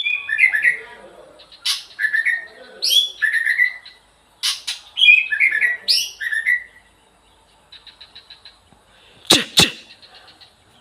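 White-rumped shama singing: repeated whistled phrases that fall in pitch, mixed with sharp clicks, then a run of rapid ticking notes. Two loud, steep sweeping sounds follow a little after nine seconds in.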